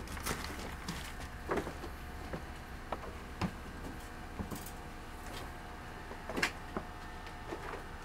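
A steady low hum with a few faint steady tones above it, broken by scattered light knocks and clicks, the loudest about a second and a half, three and a half, and six and a half seconds in.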